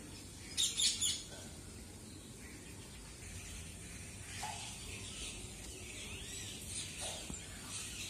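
Sparrows chirping: a loud cluster of high chirps just under a second in, then a denser run of short chirps from about halfway, over a steady low background rumble.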